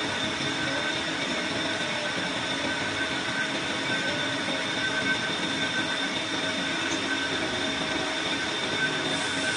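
Lathe turning a 1.4301 (AISI 304) stainless steel pipe, the cutting tool taking a steady cut: an even machining noise with a constant high-pitched whine.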